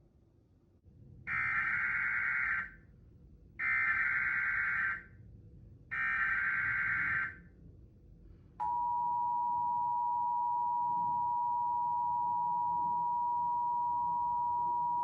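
Emergency Alert System test signal: three bursts of the SAME digital header data, each a little over a second long with about a second between them. A little past halfway the steady two-tone EAS attention signal (853 and 960 Hz together) starts abruptly and holds.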